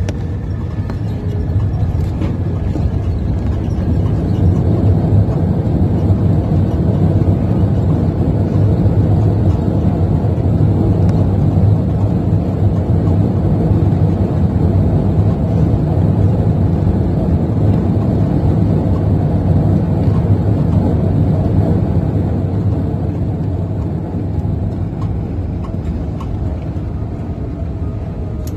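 Airbus A380 airliner heard from inside the passenger cabin: a loud, steady low roar that builds over the first few seconds and eases off during the last few.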